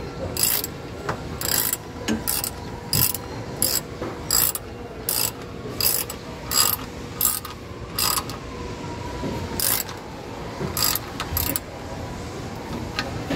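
Hand ratchet with an 11 mm socket clicking as it is swung back and forth, snugging down valve cover bolts. The clicks come about one every half to one second, pause briefly past the middle and stop near the end.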